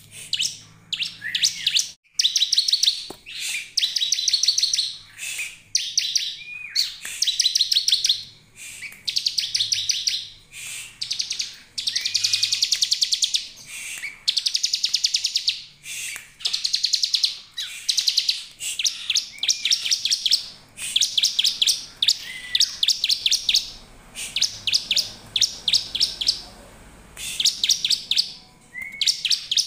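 Bar-winged prinia (ciblek) singing: a continuous series of high, fast trills of rapidly repeated notes, each burst lasting about half a second to a second and a half with short gaps between, some starting with a short rising note.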